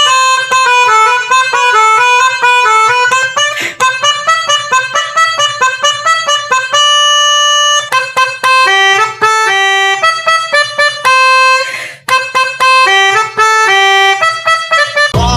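Indonesian 'telolet' bus horn, a set of electrically switched air-horn trumpets, playing a fast tune as a string of loud, reedy chords that step quickly from note to note. One chord is held for about a second some seven seconds in, and there is a short break near twelve seconds.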